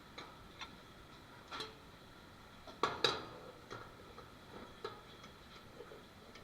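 Scattered clinks and clacks of dishes and utensils being handled in a restaurant dish pit: about seven sharp knocks, the loudest a quick double clack about three seconds in.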